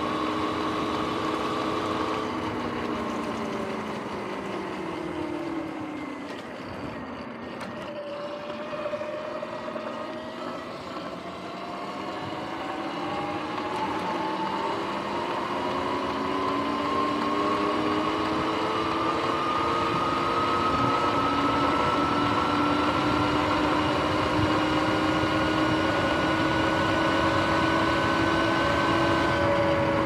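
Sur-Ron X electric dirt bike's motor and chain drive whining while riding, with tyre and wind noise. The whine falls in pitch as the bike slows a few seconds in, then rises steadily as it speeds up and holds steady for the last third.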